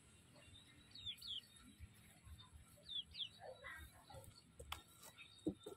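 Bird chirps: two pairs of quick, high chirps falling in pitch, about two seconds apart, with faint knocks and rustling underneath.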